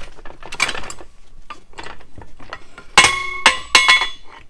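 Homemade steel engine stand being folded over and stowed: light metal rattles and clicks, then three sharp metal clanks about three seconds in that ring on briefly.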